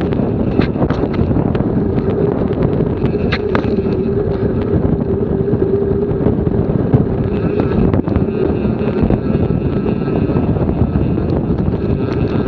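Wind buffeting an action camera's microphone on a moving bicycle: a loud, steady rumbling rush. A faint steady hum runs under it until about halfway through, with a few light ticks.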